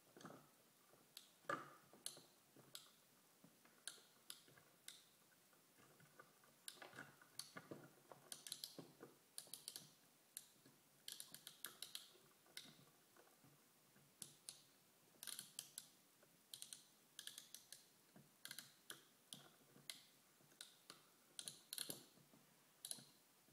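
Quiet, irregular small clicks and taps of a toy crane and wooden train-table pieces being handled, sometimes in quick runs of several clicks.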